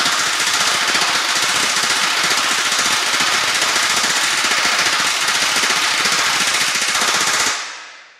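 Pneumatic rivet gun hammering a hot rivet into a steel carriage frame, a loud, rapid, continuous rattle of blows that fades away near the end.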